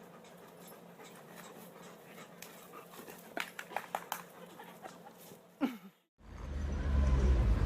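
A dog panting softly with a few faint short sounds, then a brief falling whine just before a sudden cut. After the cut, a louder low rumble starts.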